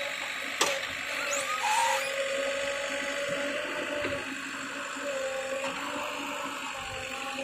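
JCB backhoe loader's diesel engine and hydraulics running under working load, with a steady whine that rises and falls in pitch. There is one sharp clank about half a second in.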